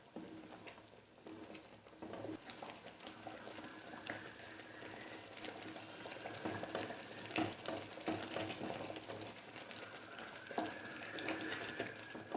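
Water at a rolling boil in a pan, bubbling with many small pops, while a spoon stirs in rava (semolina) a little at a time.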